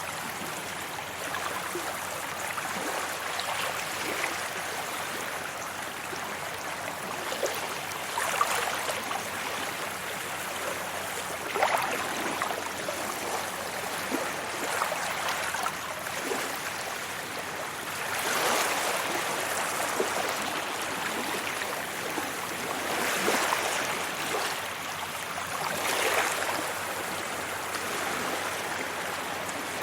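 Sea waves washing onto a beach: a steady rush of water that swells every few seconds as each wave comes in and breaks.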